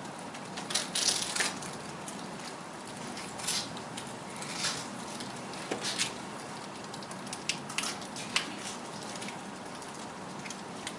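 Scattered short crinkles and crackles of plastic packaging being handled, over a steady room hiss.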